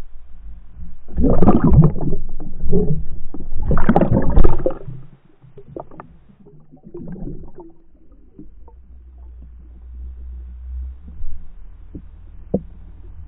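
Muffled thumps and water rush picked up underwater as a pike thrashes with a dead herring bait and drags the rig through the weeds. Two loud bouts about a second and about four seconds in, then a few fainter knocks.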